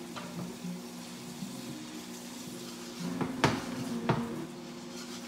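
Summer squash and bell pepper stir fry sizzling quietly in a skillet as a wooden spatula stirs it, with two sharp knocks of the spatula against the pan a little past the middle.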